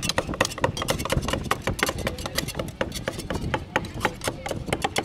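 Flat steel scrapers chopping paan filling against a stone slab and steel trays, several choppers at once. The result is rapid, irregular metallic clacking, several strikes a second.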